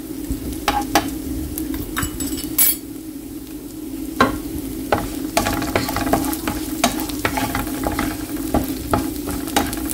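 Crushed shallots, garlic, curry leaves and chilli flakes sizzling in hot coconut oil in a frying pan, with a wooden spatula scraping and tapping across the pan at intervals, more often in the second half. A steady low hum runs underneath.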